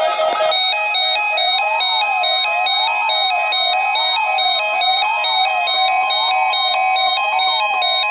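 Weather radio alert alarm sounding for the NOAA Weather Radio Required Weekly Test. It is a continuous electronic warbling tone that rises and falls about once a second over a steady higher tone.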